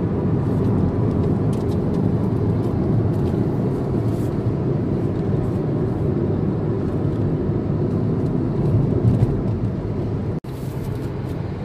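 Steady road and engine noise inside a car's cabin while cruising at highway speed, mostly low rumble. About ten seconds in, it breaks off for an instant and comes back slightly quieter.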